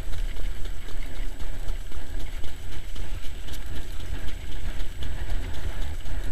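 Heavy wind rumble on the microphone of a camera riding on a trotting-race sulky, with the trotter's hoofbeats and the sulky rolling over the track faintly under it.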